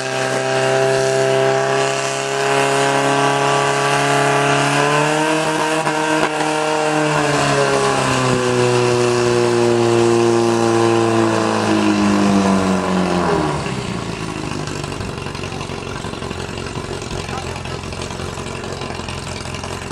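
Fire-sport portable fire pump engine running hard, its pitch rising slightly and easing off. About thirteen seconds in it glides down and drops away, leaving a quieter steady hiss.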